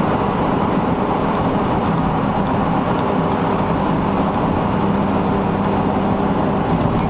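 Road and engine noise inside the cab of a U-Haul truck driving at highway speed: a steady rumble with a constant low hum.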